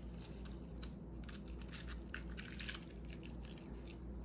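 Water poured slowly from a plastic cup over a cup packed with ice and frozen fruit, with faint, irregular crackling and clicking from the ice as the liquid runs over it.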